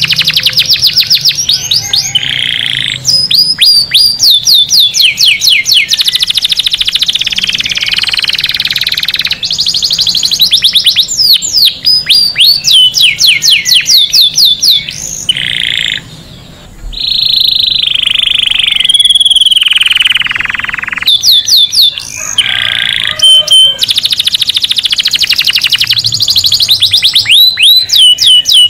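Domestic canary singing a long, loud song. It runs as a chain of rapid trills, each phrase a quick run of identical notes that shifts to a new note type every few seconds, with a short lull about sixteen seconds in.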